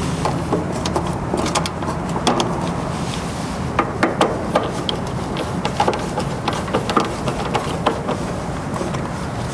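Scattered light clicks and taps of tools and wire terminals being worked onto an AC contactor, over a steady low background hum.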